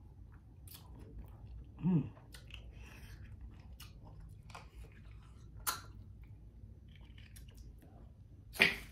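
A person chewing crab leg meat, with soft wet mouth clicks, a short hummed sound about two seconds in, and a brief loud noise near the end.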